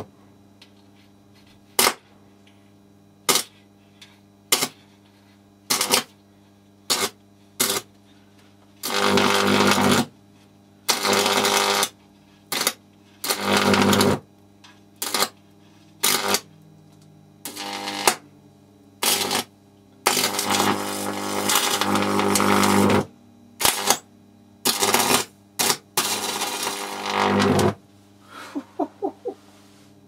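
High-voltage arc from two parallel-wired microwave oven transformers, about 4,200 volts, burning into a computer sound card's circuit board. It is a loud, crackling electrical buzz that comes in about twenty separate bursts, from a split second to about three seconds long, and ends in a few small crackles near the end.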